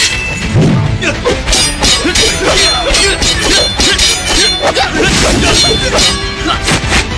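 Film fight-scene sound effects: a quick run of sharp weapon clashes and hits, about three a second, over background music.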